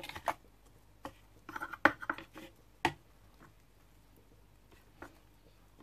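A metal spoon scraping and tapping against the plastic bowl of a stopped food processor while stirring sticky ground-pork paste. A few short scrapes and knocks, most of them in the first three seconds.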